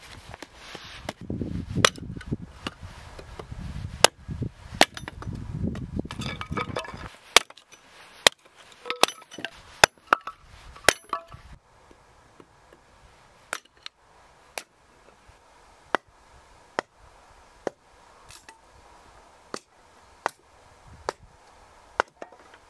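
A run of short, sharp knocks and clicks. For the first seven seconds they come irregularly over a low rumbling noise; after that they fall into a slower rhythm of about one a second over a quiet background.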